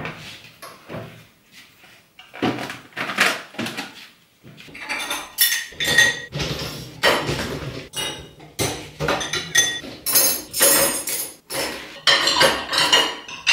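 Dishes, glasses and cutlery clinking and knocking as they are stacked into a dishwasher's wire racks: a few scattered knocks at first, then a busy run of small clatters and chinks from about two seconds in.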